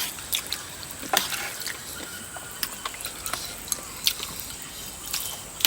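Coconut-milk curry being stirred in a pot, with scattered clicks and scrapes of the utensil against the pot and a soft liquid squish.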